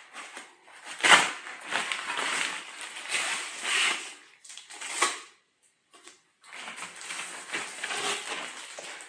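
Nylon storage bag rustling and crinkling as it is handled and a stand pole is pulled out of it, with sharper peaks about a second in and about five seconds in, and a brief lull around six seconds.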